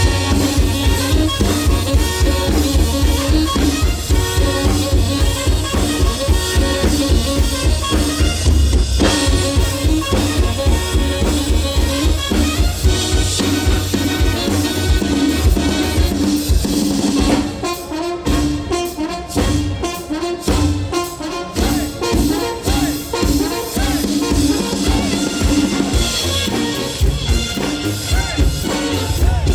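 Music with brass instruments and a drum kit playing a steady beat. About seventeen seconds in it thins out into a sparser, slightly quieter passage.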